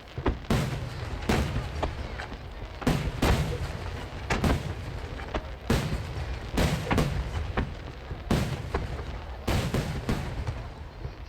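Large 12-inch (shakudama) aerial firework shells bursting in rapid succession, about a dozen dry, sharp booms at irregular intervals, with a low rolling rumble between them.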